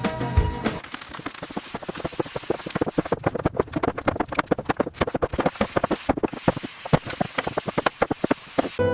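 A rapid, irregular crackle of many small clicks and taps with no steady tone, starting just under a second in and ending just before the end.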